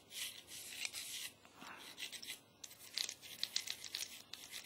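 Solvent-wet 9mm bore brush scrubbing through a pistol barrel, bristles scraping on the metal in back-and-forth strokes: two longer strokes, then quicker scratchy strokes with small ticks in the second half.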